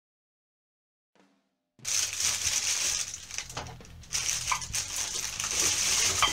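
Silence for almost two seconds, then a thin plastic grocery bag rustling and crinkling as it is handled and loaded, with a few light knocks.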